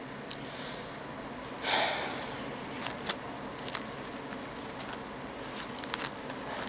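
Quiet room tone while a man sits silent; about two seconds in, he draws one short, audible breath through the nose. A few faint small clicks follow later.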